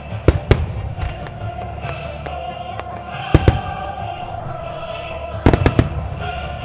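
Starmine firework shells bursting in sharp booms: two close together near the start, two more about three and a half seconds in, and a quick cluster near the end. Music plays steadily under them.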